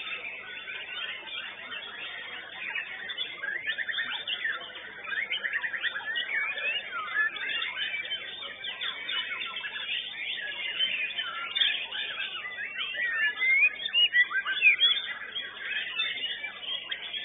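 White-rumped shama (murai batu) singing a fast, varied song of quick rising and falling whistles and trills, with no pause. It gets louder in places near the end.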